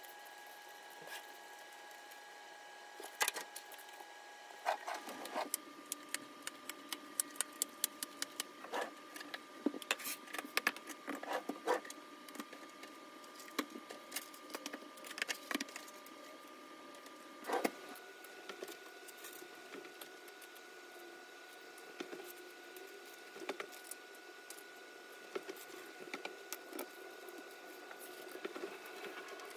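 Small metal earrings, findings and cardboard earring cards being handled on a table while packing jewelry orders: light clicks, taps and jingles in quick clusters, busiest through the middle.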